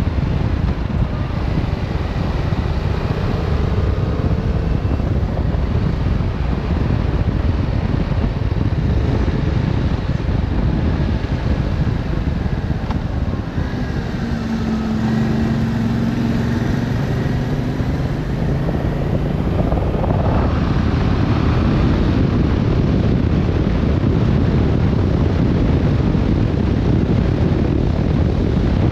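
Yamaha Tracer 7's 689 cc parallel-twin engine running on the move, largely buried in heavy wind noise on the microphone. Midway the engine settles to a lower, steady note, and about twenty seconds in its pitch rises as it accelerates.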